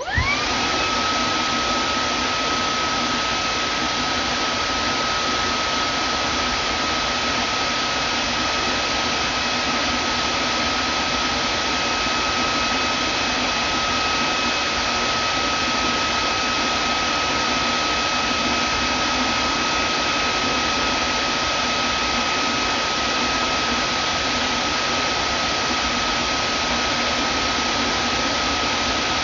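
Vacuum cleaner switched on: the motor spins up with a quick rising whine, then runs steadily, a constant whine over the rush of air.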